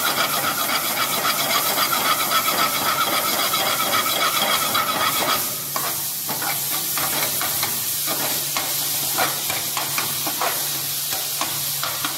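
A steel ladle stirring and scraping chopped cabbage around an aluminium pan over a gas flame while the cabbage sautés with a hiss. The stirring is a continuous rasp for about the first five seconds, then breaks into separate scrapes and taps of the ladle on the pan.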